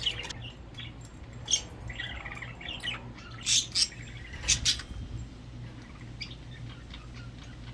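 Pet budgerigars chirping and chattering, with a handful of loud, sharp squawks between about a second and a half and five seconds in, over a steady low hum.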